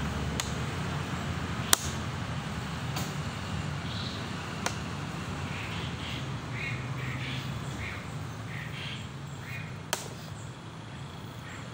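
Chess pieces knocked down onto a board: five sharp clicks, spaced irregularly, the loudest about two seconds in and the last near the end. Under them runs a steady low hum of road traffic.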